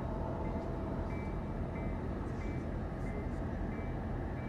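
HO scale model trains running on a layout: a steady rumble of motors and wheels on track, with a faint short high tone repeating about every two-thirds of a second.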